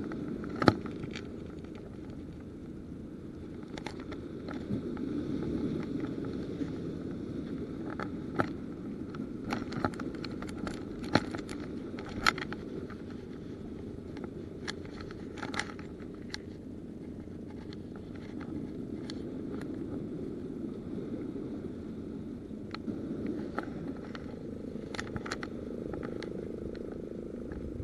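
Irregular clicks, knocks and scrapes of the angler's hands and gear near the camera over a steady low rumble, as the hooked fish is landed and held on a lip grip.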